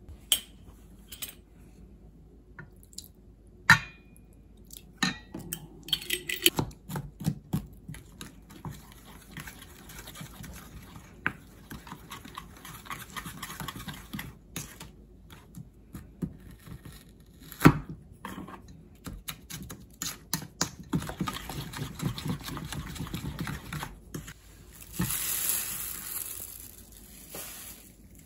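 A wooden spoon stirring a wet marinade in a stainless steel bowl, scraping and clinking against the metal with occasional sharper knocks. Near the end comes a short rustling burst.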